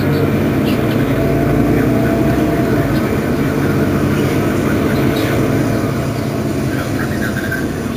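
Mercedes-Benz Citaro Facelift city bus engine idling steadily, heard from just behind the bus.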